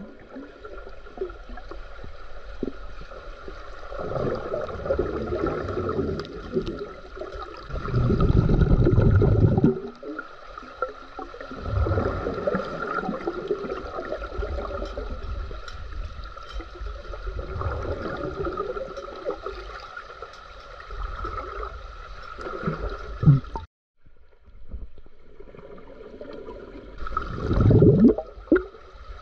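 Swimming-pool water heard through an underwater microphone: bubbles and swirling water in uneven swells, louder around a third of the way in and again near the end, over a steady hum. The sound cuts out abruptly for a moment about three quarters of the way through.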